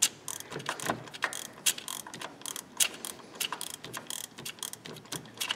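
Ratchet and socket extension being worked to back out a spark plug that has just been cracked loose, giving irregular sharp metallic clicks, several a second.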